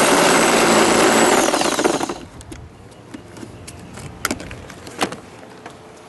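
Cordless drill running as it bores into the scooter's plastic front panel, its motor whine falling as it winds down about two seconds in. A few light clicks of plastic being handled follow.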